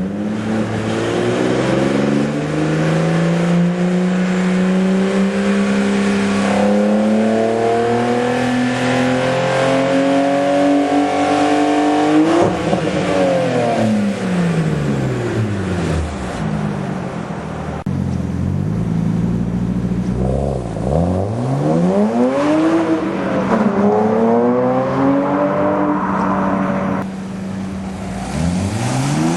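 BMW 135i's turbocharged straight-six engine through an aftermarket Berk Technology exhaust, pulling hard with its pitch climbing steadily for about twelve seconds. It then drops off sharply, followed by several shorter rev rises and falls near the end.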